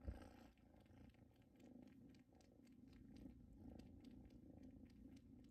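Bengal kitten purring, faint and steady, with a few soft clicks over it.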